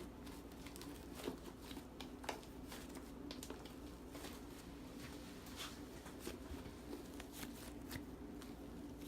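Fluffy shaving-foam slime being kneaded and stretched by hand to mix in red dye: faint, irregular sticky crackles and squishes, over a steady low hum.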